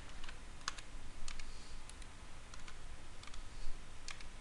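Computer keyboard keys tapped in short, sparse clicks, often in quick pairs, as numbers are typed into a table.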